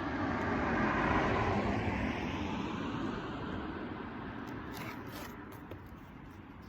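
A vehicle passing by: a smooth rush of noise that swells to its loudest about a second in, then slowly fades away. A few light clicks come about five seconds in.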